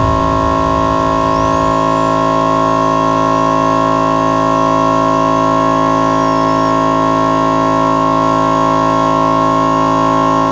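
Air compressor running loudly and steadily: a constant machine drone made of several held tones, with a faint wavering whistle above it in the first few seconds.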